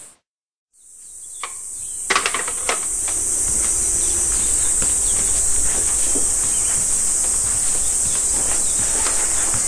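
Steady high-pitched chorus of summer cicadas, which drops out for a moment near the start and fades back in. A few sharp knocks come about two seconds in.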